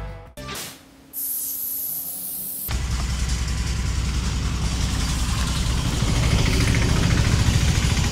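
Background music fades out, then a high hiss runs for about a second and a half. From under three seconds in, a steady low rumble of an engine idling nearby takes over.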